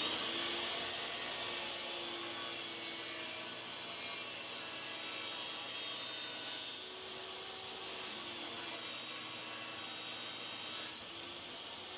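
Table saw running at full speed while ripping a laminated mahogany and maple blank, its motor pitch dipping slightly around the middle and near the end as the blade takes load.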